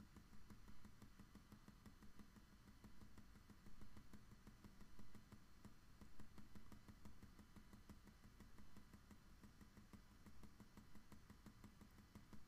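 Faint, rapid, irregular tapping of a pencil point on paper while stippling dots, over a low steady hum.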